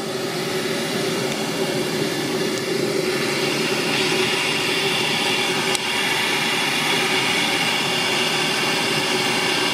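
Southworth steam boiler feed pump running steadily on steam, a fast even mechanical running sound as it pumps water into the boiler. A hiss grows louder about four seconds in.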